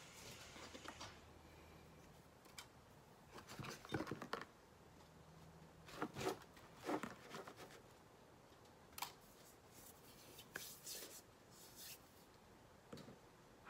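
Faint room tone broken by a few short clusters of small clicks and scrapes, like small objects being handled.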